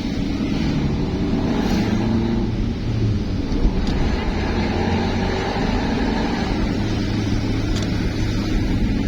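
Road vehicle engine running steadily with road noise, a low drone that drifts slightly in pitch. There is one short knock a little over three seconds in.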